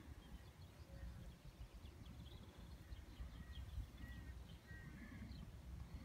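Faint outdoor ambience: a low, steady rumble with distant birds chirping in short, high calls through the middle.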